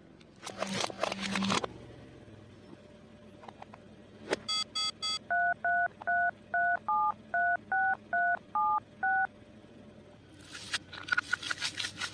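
Telephone keypad touch tones: ten dual-tone beeps at about two and a half a second, as a number is dialed. They follow three short, higher beeps. Brief crackly rustling or crunching comes before the tones and again near the end.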